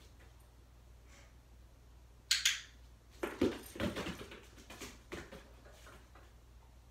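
A dog sniffing at the floor and moving about: a short hiss about two and a half seconds in, then a run of soft, irregular sniffs and scuffs for about two seconds.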